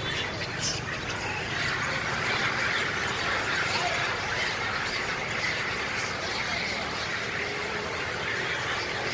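Long-tailed macaques squealing together: many overlapping squeals in a continuous chorus that thickens about a second and a half in. It is the noise of two rival troops fighting.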